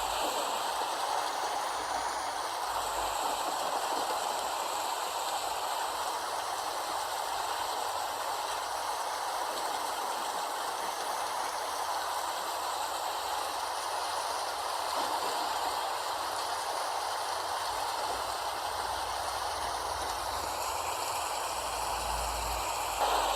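Steady rain falling, an even hiss with no breaks or distinct drops standing out.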